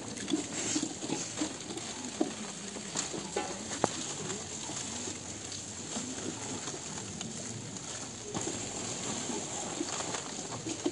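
Outdoor crowd ambience at a monks' alms round: a steady faint hiss, soft rustling and small knocks from people handling food offerings, and a dove-like bird cooing now and then.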